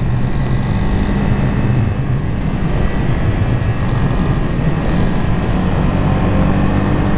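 2019 Honda CB300R's single-cylinder engine running steadily with the bike under way, over a constant rush of wind noise.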